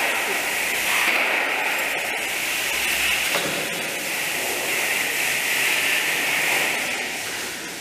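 Steady, loud hiss of the cheese dairy's equipment around the copper curd vat, dipping briefly near the end.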